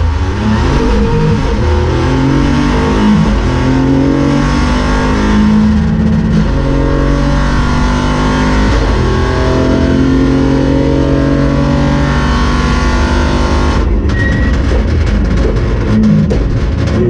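Peugeot 208 Rally4's turbocharged three-cylinder engine heard from inside the cockpit, pulling at full throttle with its pitch climbing through several upshifts, then holding high revs. Near the end the driver lifts off and the engine crackles on the overrun, with a short rise in revs on a downshift.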